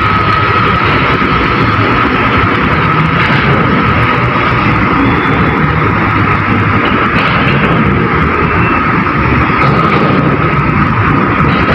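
Heavy diesel container-handling machinery running steadily, a dense engine rumble with a constant high-pitched whine over it.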